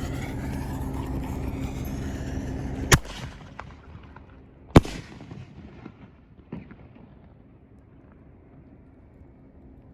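Nishiki Blast firework going off: a steady rushing noise, then two sharp loud bangs about two seconds apart, the second the louder, followed by a few fainter pops.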